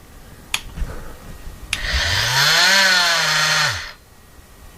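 Ryobi P343 18V cordless oscillating multi-tool with a brushed motor switched on with a click, winding up and running unloaded with a high buzzing whine for about two seconds, then winding down.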